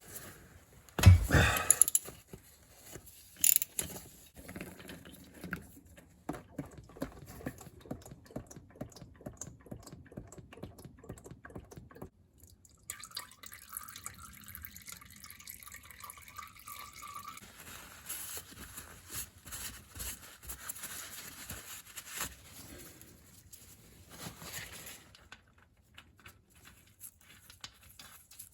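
Old gearbox oil pouring and dripping into a container, a steady trickle with scattered drips, after a couple of loud knocks near the start.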